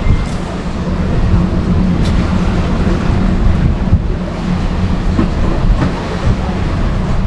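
Wind rumbling on the microphone over sea waves washing around a pier, a loud, steady low rumble.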